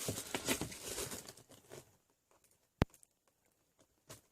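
Paper rustling as a booklet and its packaging are handled, dying away after about a second and a half. A single sharp click about three seconds in is the loudest sound.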